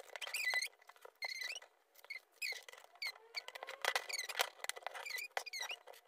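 Sped-up audio of Lego bricks being fitted together: a rapid patter of small plastic clicks mixed with short, high, chirping squeaks.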